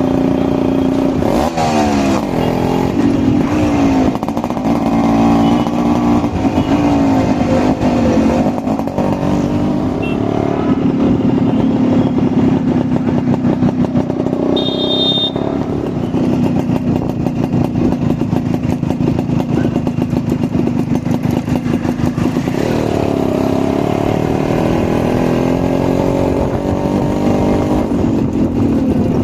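Yamaha RX135 single-cylinder two-stroke motorcycle engine running through its silencer, the throttle opened and closed several times so the pitch rises and falls over a steady idle-like note.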